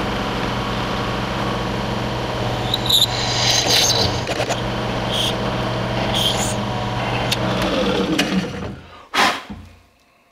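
Benchtop drill press motor running steadily while its bit drills through a cleaver's handle scales, with short scraping bursts as the bit cuts. Near the end the motor is switched off and winds down with a falling hum, followed by a single knock.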